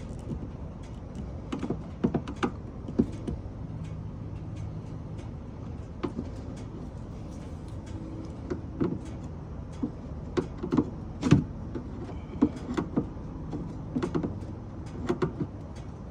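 Screwdriver working out small plastic trim clips: scattered irregular clicks, taps and scrapes of plastic and metal over a steady low hum.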